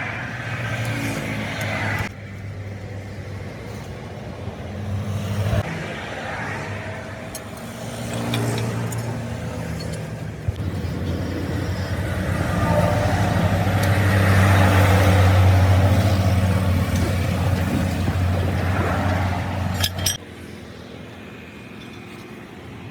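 Motor vehicle engine running steadily, growing louder toward the middle and then easing off. The sound drops abruptly about two seconds in and again near the end.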